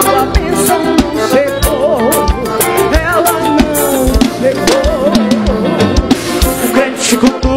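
Live gospel band music: a steady drum-kit beat under a wavering melody line, with keyboards filling in.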